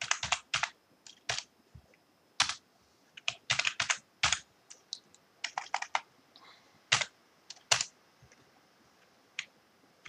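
Typing on a computer keyboard: quick irregular runs of keystrokes with short pauses between them, and a lull of about a second and a half near the end.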